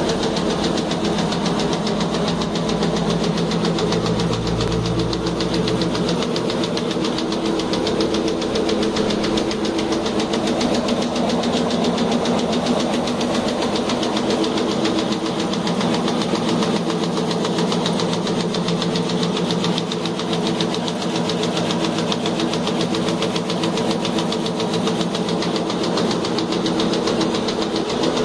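SGD-260 gauze bandage machine, a crochet knitting machine, running steadily at speed: a rapid, even mechanical clatter over a steady hum.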